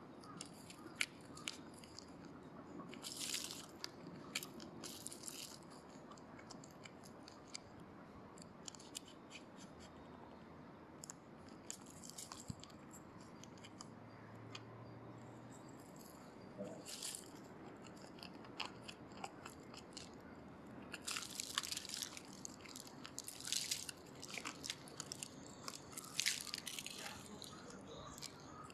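Lesser Japanese mole digging and shoving through dry leaf litter and soil: irregular rustling and crackling of dead leaves and earth, busiest in the last third.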